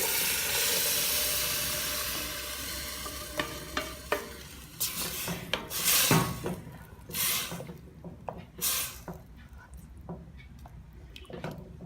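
Ground tomato purée poured into a pot of sautéed onion, meat and legumes, sizzling at first and fading over a few seconds. Then a spoon stirs and scrapes against the pot.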